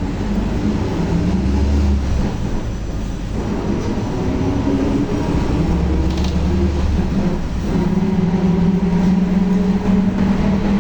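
Volkswagen 17-230 OD bus on the move, its engine running under a loud howl from the differential. The whine holds steady at times and rises and falls in pitch with road speed.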